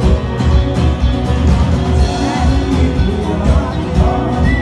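A live rock band playing loud, with a heavy bass and drum beat.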